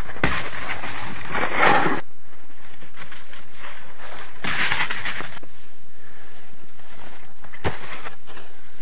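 Snowboards scraping and sliding across a snow-park box close by, in two crackly passes a few seconds apart, with a sharp knock near the end.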